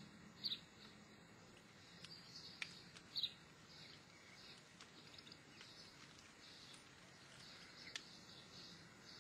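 Near silence: faint outdoor background with a low hum, broken by two short high chirps, about half a second and three seconds in, and a few faint ticks.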